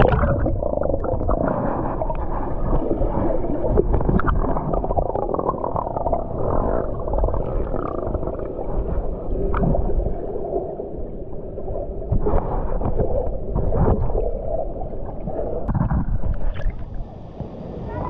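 Rushing water of a fast, rain-swollen mountain stream heard through a camera held underwater: a muffled low rumble with gurgling and a few sharp knocks. Near the end the camera comes up out of the water.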